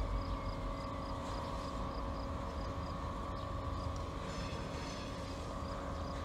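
EMD GP50 diesel-electric locomotive, its 16-cylinder turbocharged engine running steadily as the unit rolls slowly at low throttle: a steady drone with a constant whine above it.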